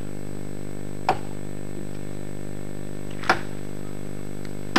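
Steady electrical hum made of several low tones held at once, with a faint high whine above it. Three sharp clicks break through: about a second in, just past three seconds, and at the very end.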